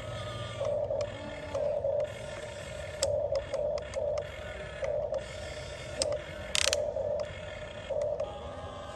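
Huina 1550 RC excavator's electric gear motors whining in short bursts, about one a second, as the model's functions are jogged. There is one brief sharp noise about two-thirds of the way in.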